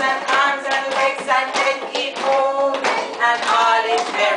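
A group of young children singing an action song together, with hand claps among the singing.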